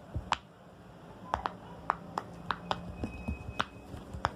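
Silicone pop-it fidget toy having its bubbles pressed: about a dozen sharp pops at an uneven pace.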